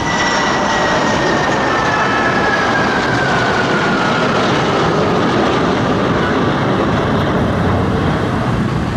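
Four Su-30MK2 fighter jets' AL-31F turbofan engines flying past in formation: loud, steady jet noise with a whine that slowly falls in pitch as the jets pass.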